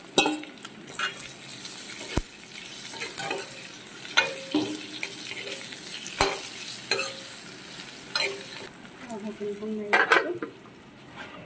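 Duck meat and onions sizzling in oil in a kadai, stirred with a metal spatula that scrapes and clinks against the pan every second or two. About ten seconds in a metal lid is set on with a clatter and the sizzle becomes quieter.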